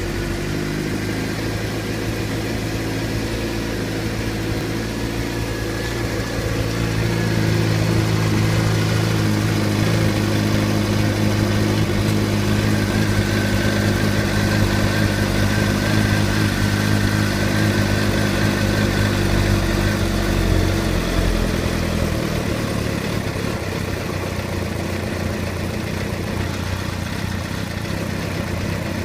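2006 Suzuki GSX-R600 K6's inline-four engine running at idle, then held at a steady higher speed for about fourteen seconds, a little louder, before dropping back to idle. The owner suspects an abnormal noise from the engine.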